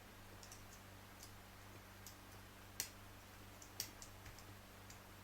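Faint, scattered clicks of lock-picking tools working inside a padlock's cylinder, two of them sharper about three and four seconds in.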